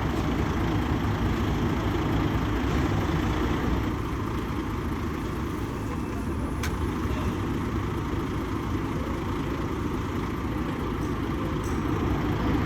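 Steady low rumble of engines and traffic at an urban construction site, with one brief sharp click about six and a half seconds in.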